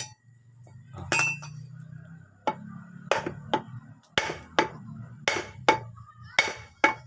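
Hammer tapping on metal parts of a Honda Revo FI motorcycle engine during teardown: about ten sharp, ringing metallic strikes, a few spaced out at first and then about two a second in the second half.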